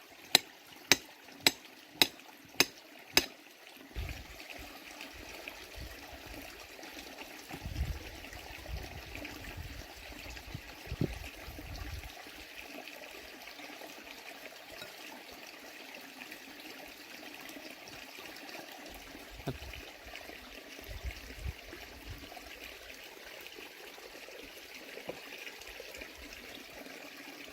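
Steady rush of running water, opened by a run of six sharp knocks about two a second that stop after some three seconds, with low rumbles now and then.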